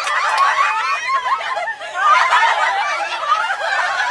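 Many high voices at once, a crowd chattering and laughing excitedly without a break.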